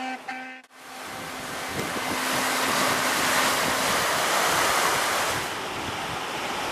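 Guitar music ends abruptly just after the start, then sea water rushes and splashes along the bow of the three-masted iron barque James Craig under way, with wind buffeting the microphone. The rush is loudest in the middle and eases slightly near the end.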